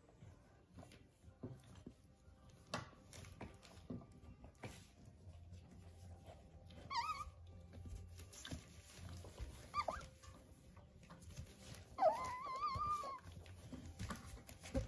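Young puppies whimpering. There is a short squeal about seven seconds in, a brief one near ten seconds, and a longer wavering whine about twelve seconds in. Scattered soft taps and rustles come between the whines.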